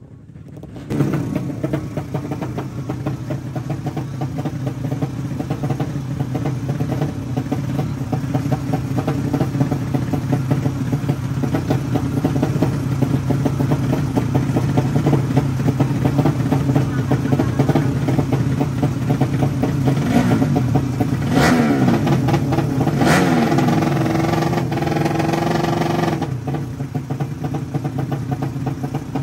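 Drag-racing motorcycles with horizontal-cylinder four-stroke engines running at the start line: a steady, loud engine drone, with the throttle blipped and revved several times between about 20 and 26 seconds in.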